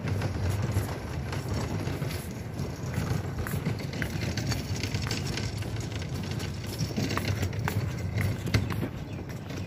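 Footsteps on dock boards, heard as scattered light knocks over a steady low rumble of wind and handling noise on the phone's microphone while walking.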